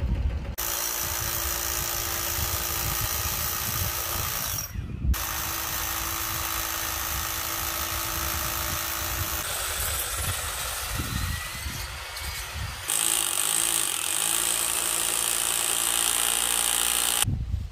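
Power drill boring into hard old brick, running steadily in long stretches with a short break about five seconds in.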